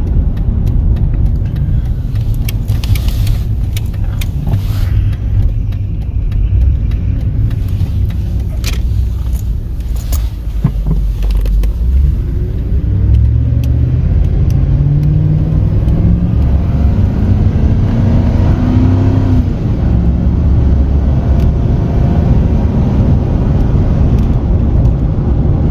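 A 1997 Ford F-150 driving, heard from inside the cab, with gusty wind rumbling on the microphone. About halfway through, the engine note rises steadily for several seconds as the truck accelerates, then falls away. There is no whine or other noise from the rear axle.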